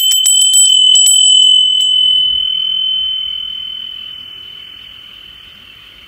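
Hanging bell-shaped wind chime (fūrin) clinking several times in quick succession, then one clear high ringing tone that slowly fades away.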